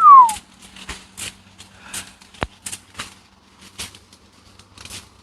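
A short falling whistle right at the start, then scattered, irregular crackles and snaps of dry brush, with one sharper snap about two and a half seconds in.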